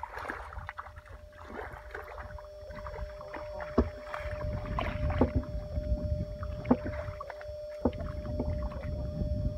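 Legs wading through shallow, thick mud and water, sloshing and squelching with irregular splashes that grow busier about a third of the way in. A faint steady hum runs underneath.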